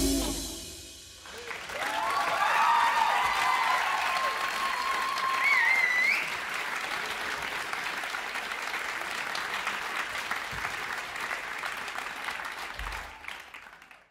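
The band's last chord dies away, and about a second later the audience breaks into applause with cheers and a whistle. The applause tapers and fades out near the end.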